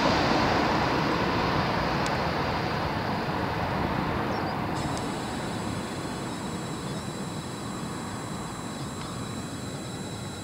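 Boeing 737 jet engines running at low taxi power close by: a broad steady roar that slowly fades, joined about halfway through by a steady high-pitched engine whine.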